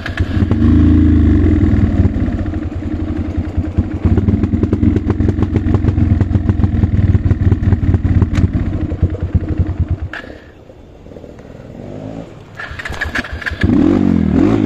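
Dirt bike engine heard from on the bike, running under throttle on a steep, rough trail. About ten seconds in the throttle closes and the engine drops to a low putter for a couple of seconds, then revs up and down again near the end.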